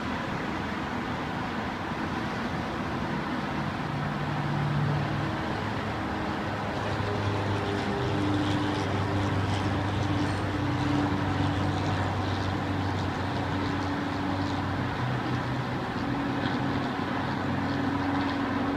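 Steady outdoor city rumble with a low engine drone that shifts in pitch and swells slightly in the middle.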